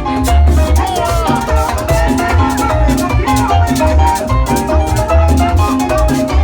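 Loud Latin dance music with a pulsing bass beat, shaker-like percussion and a melody line over it.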